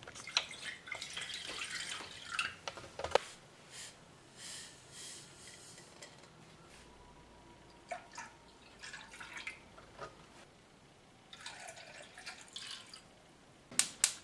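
Liquid poured from a glass measuring cup into a saucepan, with clinks of glass and a spoon against the pan. Near the end, a gas stove burner's igniter clicks rapidly, about four times a second.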